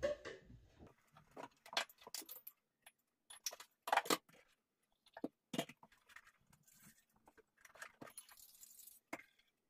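Irregular clinks, taps and knocks of cups and kitchen items being picked up and set down on a kitchen worktop while a drink is being made, loudest about four seconds in.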